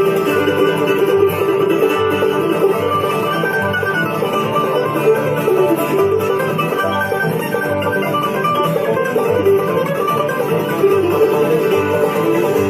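Instrumental break of a bluegrass band: clawhammer-style banjo with guitar, over a bass playing a steady note on each beat.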